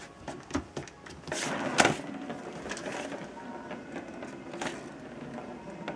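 Plastic ball rolling around inside a circular plastic track toy as a cat bats at it: a few sharp knocks in the first two seconds, the loudest just under two seconds in, then the ball rolling steadily around the track.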